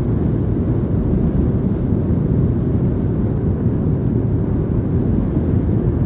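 Steady, mostly low-pitched rumbling noise of a motorcycle on the move, with no single engine note or sudden sound standing out.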